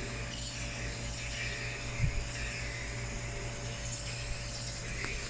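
Compressor nebulizer running: a steady low electric buzz with a faint hiss. There is one soft thump about two seconds in.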